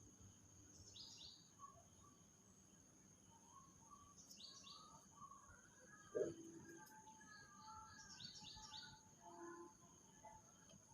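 Faint birdsong: a high call of two or three quick notes repeats about every three and a half seconds over softer, lower chirps, with a steady high-pitched tone underneath. A short knock about six seconds in is the loudest moment.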